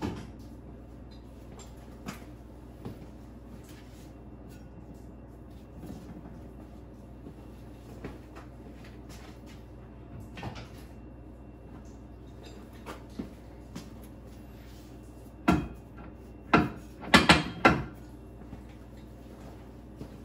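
Hand work on a MerCruiser Alpha One stern drive: scattered light clicks and knocks, then a run of four or five loud clunks about 15 to 18 seconds in.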